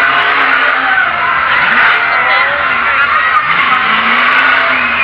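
Monster truck's supercharged engine running and revving, a loud continuous engine noise whose pitch rises and falls.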